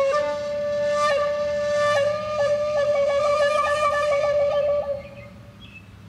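Background music: a solo flute-like wind instrument plays a held note, changes note about a second in, then holds a note with quick repeated trills before breaking off about five seconds in.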